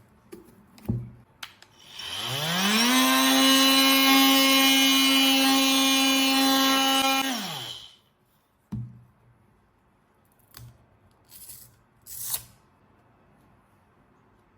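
FEIN oscillating multi-tool winds up to speed over about a second, runs at a steady buzzing pitch for about five seconds, then winds down and stops. A few light knocks follow near the end.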